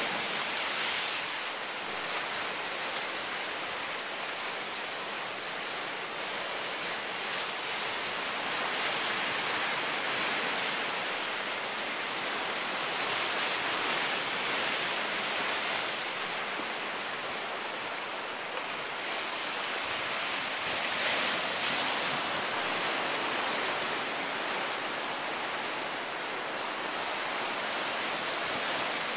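Ocean surf breaking and washing over black lava rocks: a steady hiss of rushing water that swells and eases as the waves come in.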